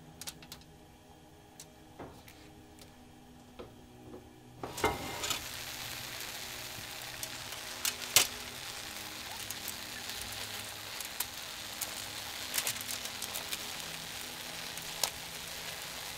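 A few light clicks as jalapeños are set on a foil-lined pan. Then, from about five seconds in, a steady sizzling hiss with sharp crackles and pops: tomatoes and jalapeños blistering and charring under high heat.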